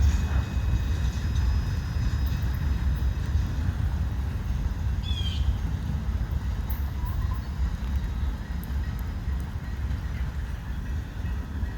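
Great Lakes Central Railroad train rolling past with a steady low rumble that eases slightly, and a short bird call about five seconds in.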